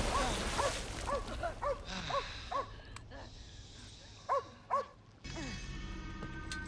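A dog barking in quick short yaps, about two a second, over a steady hiss. The barking stops about five seconds in and a low held music drone comes in.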